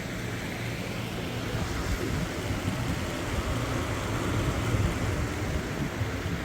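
A car engine running steadily, a low hum under a steady hiss.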